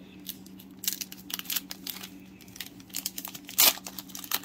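Foil wrapper of a 2021 Panini Mosaic football card pack being opened by hand: irregular crinkling and tearing crackles, with one sharper, louder crinkle a little after three and a half seconds.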